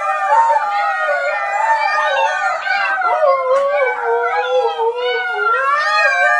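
Dogs howling, several voices overlapping in long wavering howls that rise and fall without pause.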